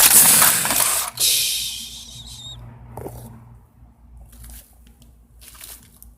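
A Lego train crashing: a loud clattering impact at the start, a second rushing clatter about a second in, then fading into scattered small clicks and knocks of plastic pieces.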